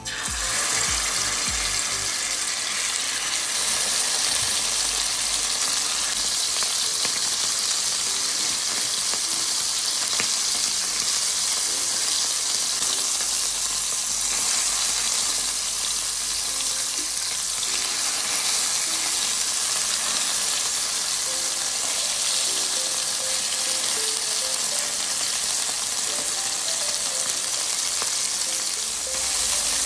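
Pork tenderloin searing hard in hot oil in a nonstick frying pan: a loud, steady sizzle that starts abruptly as the meat goes into the pan.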